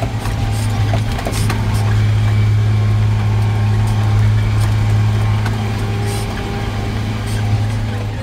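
Tractor diesel engine running steadily under load while it pulls a drainage tile plow, heard from inside the cab as a constant low drone, with a few light clicks and rattles.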